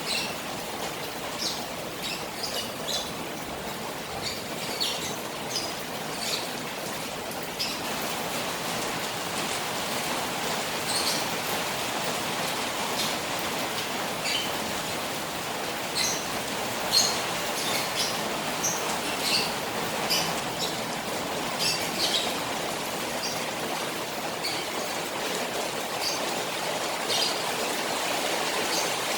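Rain falling on a koi pond, a steady hiss of water that grows fuller about a quarter of the way in, with scattered short high chirps throughout.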